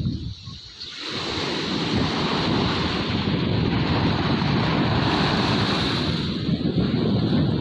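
Sea waves breaking and washing up a sandy beach, the rush of surf swelling about a second in, with wind buffeting the microphone.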